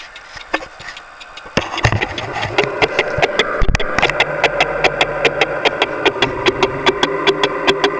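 Metal lathe taking a facing cut on a cast plummer block base; the machine sound rises sharply about one and a half seconds in, then runs on with a steady hum and a regular knock about three to four times a second. The knock is the tool hitting the casting once per revolution in an interrupted cut, because the casting is sitting at an angle and only its edge is being taken off.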